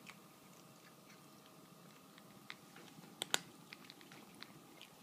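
Two cats chewing dry kibble from a stainless steel bowl: a scatter of small crunches and clicks, with two sharper clicks a little after three seconds in.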